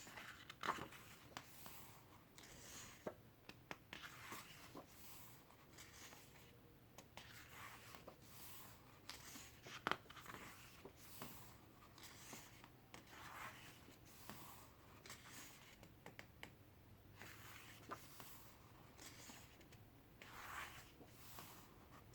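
Faint rustling of a photobook's paper pages being turned one after another, with a few light clicks and taps.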